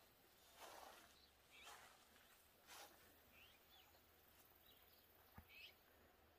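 Near silence: soft, careful footsteps about once a second in the first three seconds, with a few faint, short high chirps later on.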